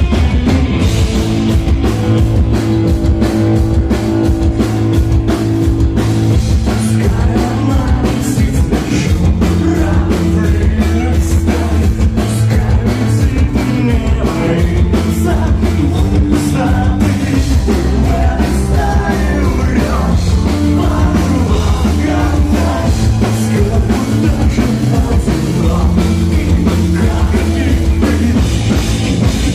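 A rock band playing live: electric guitar, bass and drum kit keep a steady beat under sung vocals, loud throughout.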